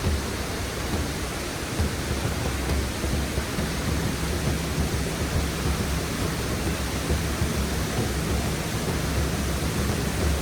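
Fast, high creek water rushing over and below a waterfall: a steady, loud rush with a deep low rumble underneath.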